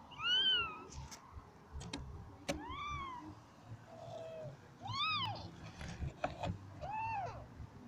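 Kittens mewing: four high calls, each rising and falling in pitch, spaced a couple of seconds apart, with a lower, flatter mew between them and a few light clicks.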